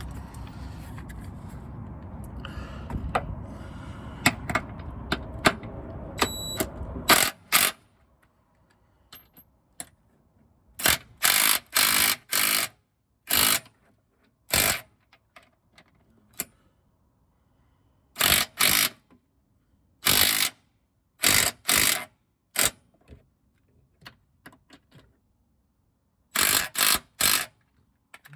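Cordless impact wrench run in short bursts of about half a second, singly and in groups of two or three, tightening receiver-hitch bolts. Before the bursts start there is a steady rumbling background with scattered clicks, which cuts off abruptly about seven seconds in.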